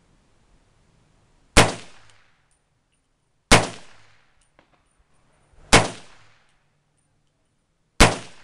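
Four semi-automatic shots, about two seconds apart, from a 1943 M1 Carbine in .30 Carbine fitted with an aftermarket muzzle compensator. Each sharp crack rings out for about half a second under the range's roof.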